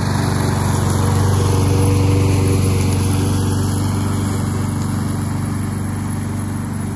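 Gas lawn mower engine running steadily at working speed, a little fainter toward the end.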